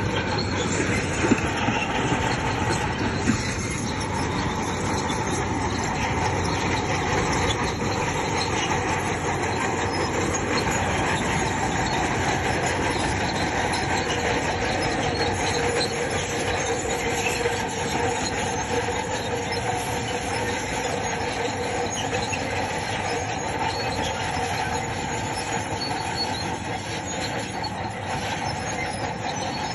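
Crawler bulldozer at work: its diesel engine running under load while the steel tracks squeal and clank steadily, with a couple of sharp metallic knocks in the first few seconds.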